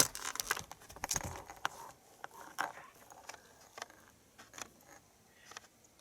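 Irregular clicking and rattling of small objects being handled, busiest in the first second and a half, then sparser clicks.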